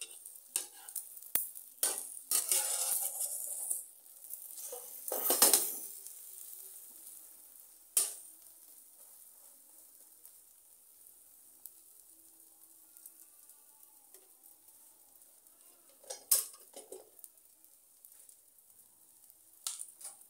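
Metal slotted spatula scraping and knocking against a nonstick frying pan as an egg omelette is turned and folded, in bursts through the first six seconds, once about eight seconds in, and again around sixteen seconds and near the end. Between the scrapes the egg sizzles faintly in the oil.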